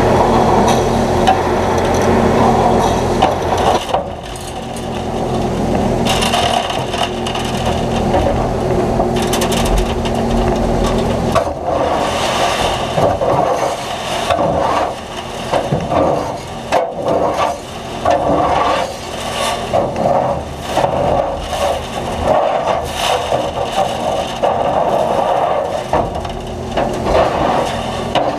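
John Deere 9500 combine working a corn field: a steady machine drone, then a long run of irregular cracks, knocks and scraping sounds that dominate from about twelve seconds in.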